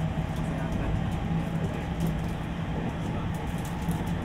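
Inside a JR West 225-series 5000-subseries electric train running between stations: steady rolling noise of the wheels on the rails, with a low steady hum from the traction motors and drive.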